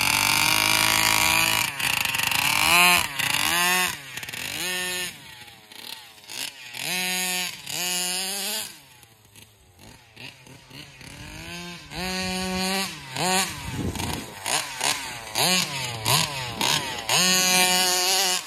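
Meyer-ported 32cc two-stroke engine of a Rovan RC buggy, breathing through a Taylor RC side pipe and a Roostertail 990 carburetor, revving up and down in repeated throttle bursts as the buggy is driven. It falls much quieter for a couple of seconds about halfway through, then the revving picks up again.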